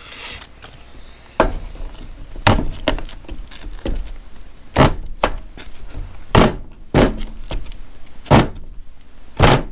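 A series of irregular knocks and thuds, about ten over several seconds, as hard objects are handled and set down, each with a short ring after it.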